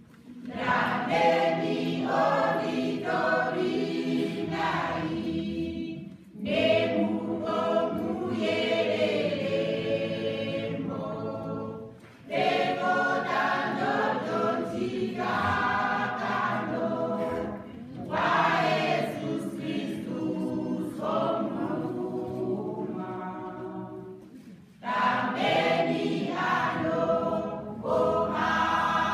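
Church choir singing a hymn in parts, unaccompanied, in phrases of about six seconds with a short breath between each.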